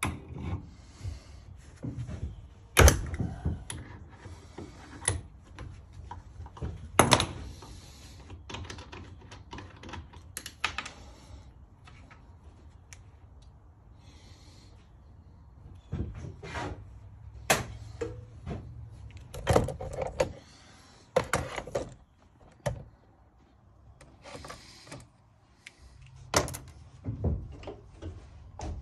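Irregular metallic clanks, clicks and knocks of hand tools working a thermostatic expansion valve clamped in a bench vise, with brass valve parts and a spring coming loose. Several sharp, loud knocks stand out among quieter handling and rubbing sounds.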